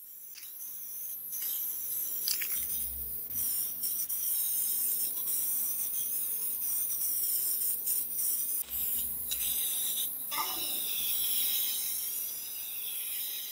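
Spray can hissing as paint is sprayed, in long steady sprays with a few brief breaks.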